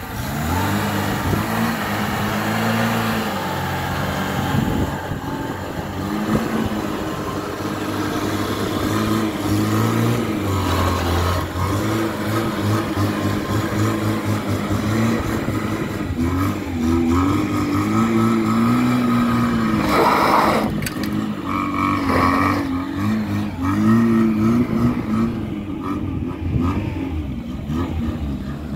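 Off-road 4x4 engines revving, rising and falling in pitch over and over. About twenty seconds in, a short, loud, higher-pitched sound stands out.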